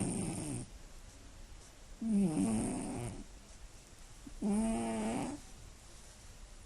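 Scottish Fold cat snoring, very loud: the end of one snore, then two more buzzing snores starting about two and four and a half seconds in, each about a second long.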